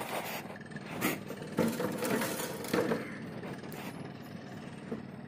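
Scattered knocks and clinks of hand tools and metal parts being handled on an excavator's diesel engine, several irregular sharp strikes over a low rustling background.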